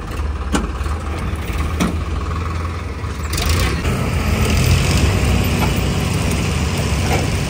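Diesel engines of Dasmesh 912 combine harvesters running with a heavy low rumble as one machine works to pull the other out of the mud. The engine noise grows louder about halfway through.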